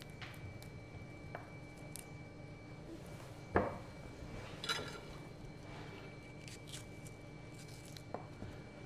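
Quiet food-prep handling at a plastic cutting board: tomatoes picked off their stems and cut with a knife, with a few faint clicks, a soft knock about three and a half seconds in and a brief scrape a second later, over a faint steady room hum.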